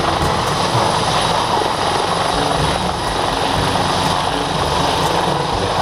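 Super Puma-family twin-turbine military helicopter hovering low: steady turbine and rotor noise with a fast low beat from the main rotor blades.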